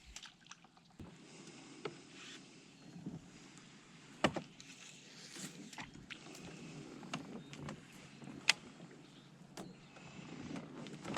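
Scattered small clicks and knocks aboard a kayak while fishing, over a faint background hiss, with two sharper clicks about four seconds in and near eight and a half seconds.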